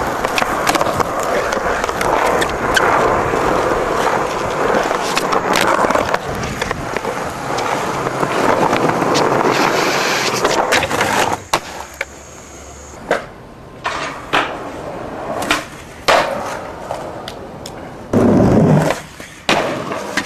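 Skateboard wheels rolling over rough concrete for roughly the first eleven seconds, then a string of sharp clacks and knocks from the board popping and landing, with a louder hit near the end.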